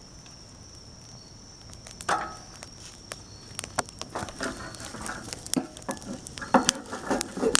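Campfire crackling, with irregular snaps and pops, while crickets trill steadily in the background.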